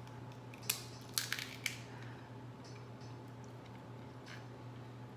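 Seafood shells cracking and snapping by hand: one sharp crack about a second in, a quick run of cracks just after, and a fainter one near the end, over a steady low hum.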